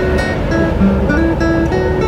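Background acoustic guitar music, plucked notes changing pitch every half second or so.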